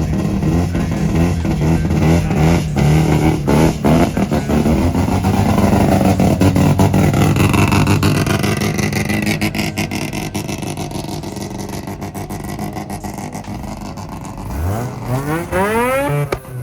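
Car engine running steadily, then revving up near the end with a clear rise in pitch.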